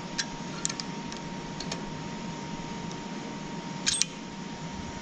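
Light clicks and taps from hands working the Wood Wizz's head-adjustment and locking parts, with one louder click about four seconds in, over a steady faint hum.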